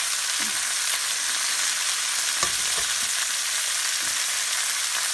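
Floured chicken pieces sizzling as they brown in a thin layer of oil in a skillet: a steady high hiss, with a few light knocks about halfway through.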